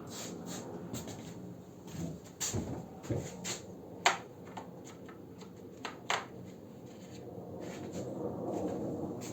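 Scattered clicks and knocks of hand tools and metal parts being handled while a single-cylinder motorcycle engine is taken apart, the sharpest about four and six seconds in, over a faint steady hum.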